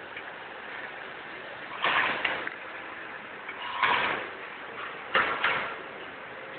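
Automatic snack packing machine running, with a short clacking burst about every one and a half to two seconds as it cycles through each pack, over steady running noise.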